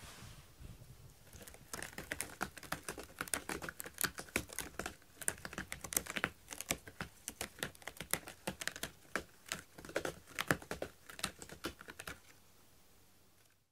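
A cat working at a corrugated cardboard scratcher: a quick, irregular run of dry crackling clicks on the cardboard. It starts about two seconds in and stops near the end.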